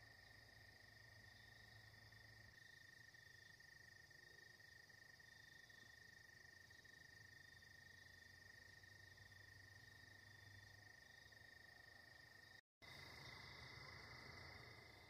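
Faint, steady chorus of insects trilling continuously at two pitches, one lower and one higher. It drops out for an instant near the end.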